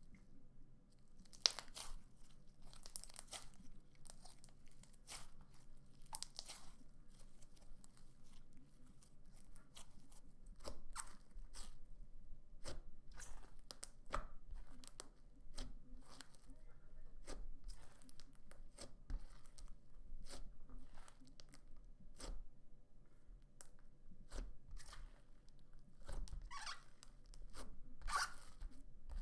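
Slime being pressed, stretched and pulled apart by hand, giving a run of irregular small crackles, clicks and squishes.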